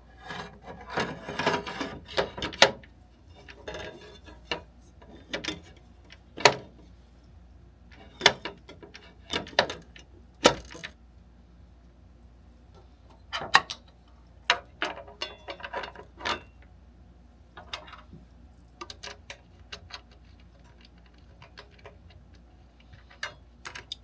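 Irregular metal clicks, clinks and knocks of hand tools and parts being handled while working at a power saw's blade and arbor bolt, busier in the first half.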